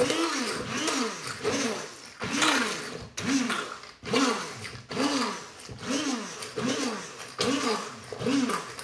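Electric hand blender running as it is plunged into cooked apples and lifted again, its motor pitch rising and falling over and over as the load changes: pureeing apple compote in a stainless steel cooker pot.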